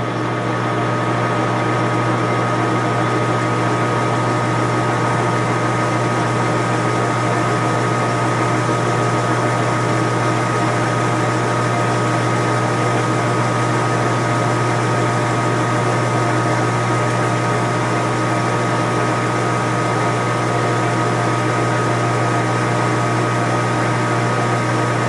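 Lathe motor switched on and running steadily during neck-turning of a brass cartridge case: a steady hum with a high whine over it.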